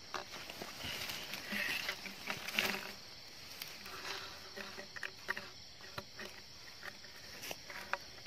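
A woven polypropylene sack crinkling and rustling as it is handled, with scattered light clicks and taps. A steady high drone of night insects runs underneath.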